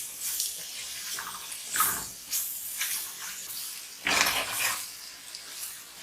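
Sliced onions and tomato frying in oil in a pan while being stirred to sauté, with a steady sizzle and several scraping strokes of the spoon, the loudest about four seconds in.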